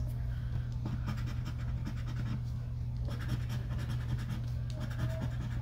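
Scratch-off lottery ticket being scraped with a round scratcher tool: quick repeated scratching strokes over a steady low hum.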